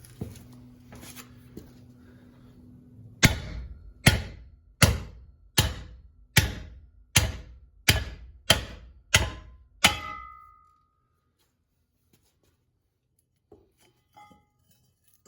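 A heavy sledgehammer strikes the wheel studs of a 1965 Mustang front brake drum, driving the pressed-in hub and studs out of the drum. There are ten metal-on-metal blows, a little under one a second. The last blow leaves a brief metallic ring.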